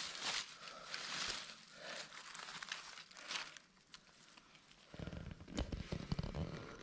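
Dry leaf litter and twigs rustling and crackling underfoot as a person moves on the forest floor. From about five seconds in, a low rumble with several sharp knocks takes over.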